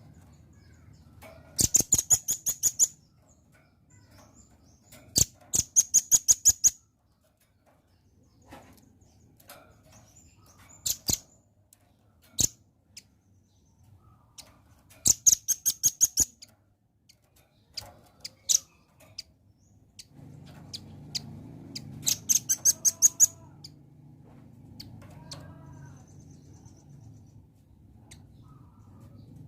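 Velvet-fronted nuthatch calling: four rapid rattling series of sharp, high chips, each about a second long, with single chips scattered between them.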